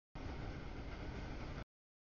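Freight train cars rolling past a grade crossing: a steady, even rumbling noise with no distinct tones or clicks. The audio drops out to dead silence abruptly at the very start and again near the end.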